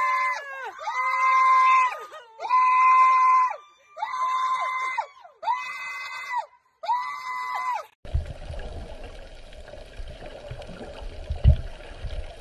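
A person's loud, high-pitched screams, repeated about once a second, each held for about a second and bending in pitch at its start and end. After about eight seconds they give way to underwater bubbling and a low rumble.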